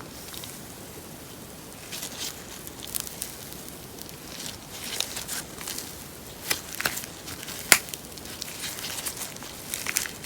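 Slime being squished and pressed by hand, giving irregular sticky crackles, clicks and small pops that start about two seconds in. One sharp snap near the end stands out as the loudest.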